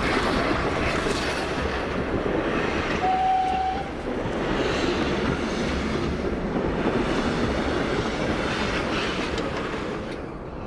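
A steam-hauled passenger train running close past, its wheels clattering and rumbling over the rail joints as the coaches go by. A brief, steady, high tone sounds about three seconds in, and the noise falls away near the end as the last coach passes.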